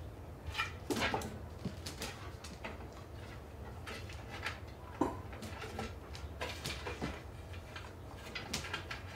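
A puppy's paws and claws knocking and scraping on a wooden rocking chair as it paws at a tennis ball on the seat: scattered light knocks and scrapes, the sharpest about a second in and about five seconds in.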